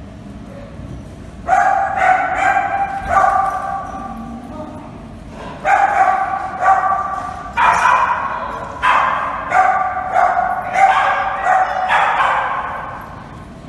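A dog barking repeatedly, about one bark a second with a short pause partway through. Each bark starts sharply and trails off in an echoing room.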